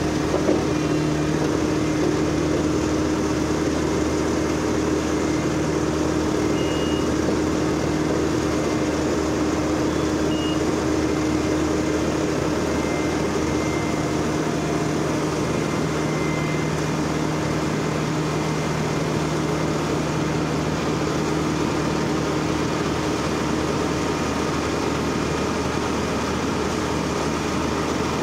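Diesel engine of a Bomag BW 211 D single-drum roller running steadily as the roller climbs the ramps onto a low-loader trailer.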